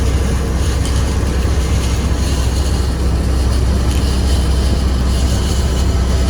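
Heavy farm machinery's diesel engine running steadily, a loud, even low drone with no change in pitch or level.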